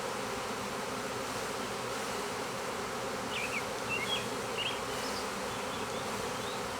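A swarm of honeybees buzzing: the dense, steady hum of many bees flying close by.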